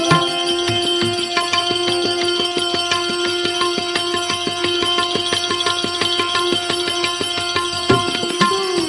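Instrumental interlude of a devotional bhajan: one long steady held note over a fast, even percussion beat, with the melody starting to move again near the end.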